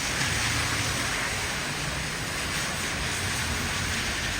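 Heavy rain falling as a steady hiss, with the low rumble of traffic driving on the wet road.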